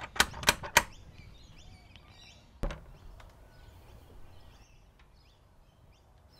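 Three quick knocks on a wooden front door within the first second, then a single thud about two and a half seconds in. Birds chirp faintly in the background.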